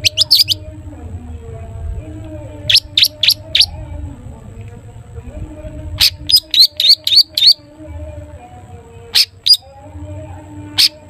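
Long-tailed shrike (cendet) singing: short, sharp, high chirps in quick clusters of two to seven, with pauses of a second or two between clusters.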